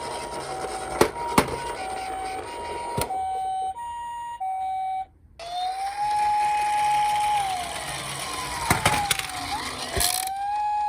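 Toy emergency-vehicle minicar's electronic siren: a two-note hi-lo tone alternating for about five seconds, punctuated by a few sharp clicks. After a short break it turns to a wailing siren that rises, holds, falls away and rises again.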